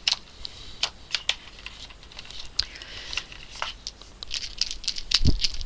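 Paper tissue crinkling as it is handled, with scattered light clicks and taps, and a dull thump near the end.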